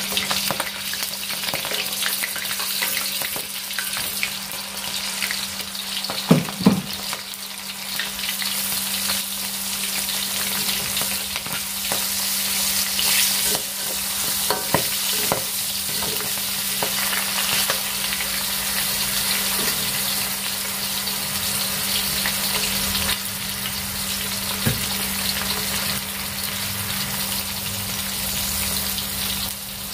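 Garlic, shallots and chilies sizzling steadily in hot oil in a steel wok, stirred with a perforated metal spatula. A few sharp knocks come about six to seven seconds in, with lighter clicks of the spatula on the wok later.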